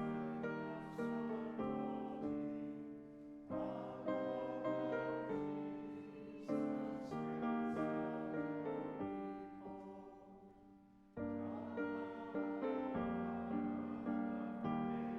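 Solo piano playing a slow, gentle piece, chords struck and left to ring. About ten seconds in the sound fades to a brief hush before a new chord picks the playing up again.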